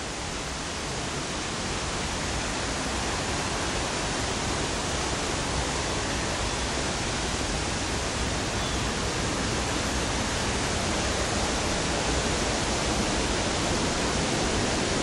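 Steady rush of flowing water in the gorge below the bridge, growing gradually louder.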